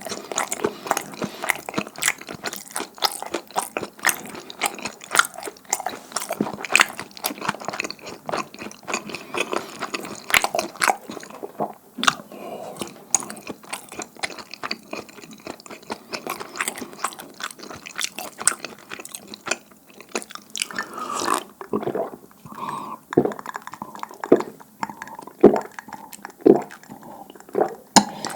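Close-miked chewing of sticky, chewy dumpling hotteok: dense wet clicks and smacks for about the first twelve seconds, thinning to slower, separate smacks after that.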